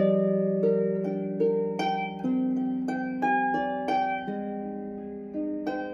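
Sonnet harp played in a slow improvisation: single plucked notes ring on one after another over a low bass note that is let ring and changes every couple of seconds.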